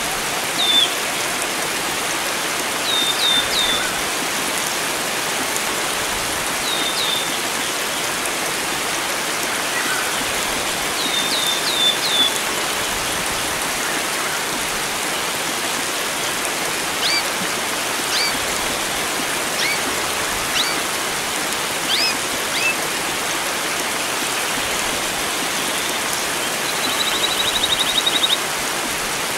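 Steady rush of flowing water with wild birds calling over it: short high down-slurred chirps in groups of two to four, then single rising notes, and a quick trill near the end.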